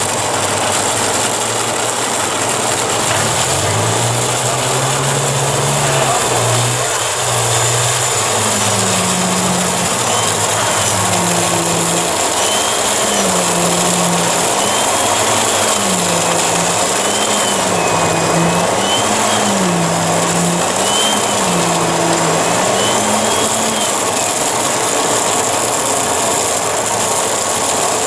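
Heavy machine engine running over a steady loud rush of site noise. About 3 s in it climbs in pitch, then from about 8 s to 24 s it revs up and down over and over, roughly every one and a half to two seconds.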